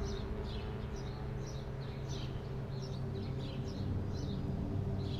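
Small birds chirping in short repeated calls over a low steady drone.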